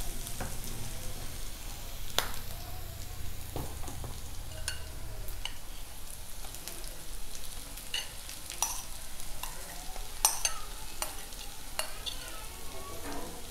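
Onions, ginger-garlic and green chillies sizzling in oil in a nonstick kadai while a wooden spatula stirs and scrapes them, with scattered sharp taps of the spatula against the pan.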